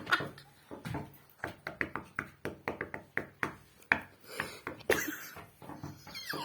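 Knocking on a wall: a quick, uneven run of sharp knocks, about three a second, in a small room.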